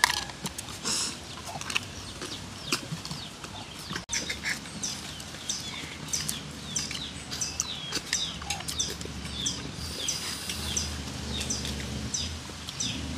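Birds chirping: a steady run of short, high, falling chirps, repeated many times.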